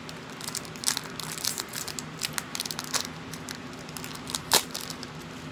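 Small plastic bag of sequins crinkling as fingers work it open, a run of irregular light crackles with one louder crackle near the end.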